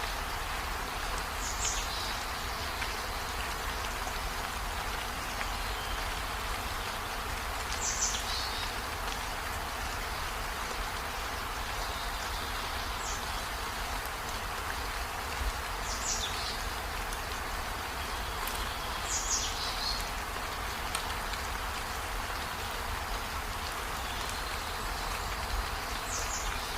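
Steady, rain-like hiss with a bird's short, high chirps, each falling quickly in pitch, six times at irregular intervals.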